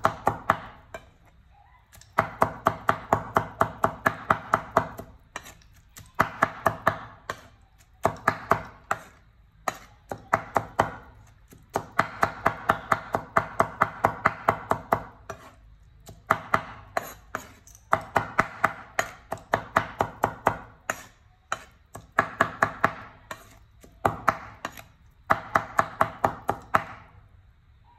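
Metal cleaver mincing tomatoes on a wooden chopping board: rapid chops about four to five a second, in runs of a few seconds with short pauses between, stopping near the end.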